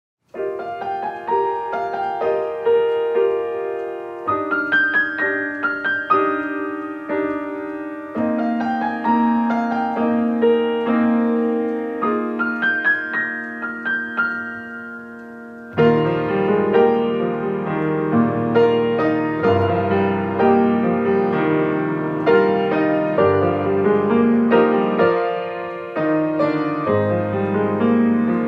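Piano playing held chords and a melody as the opening music of a worship service. About halfway through, deeper bass notes come in and the sound grows fuller.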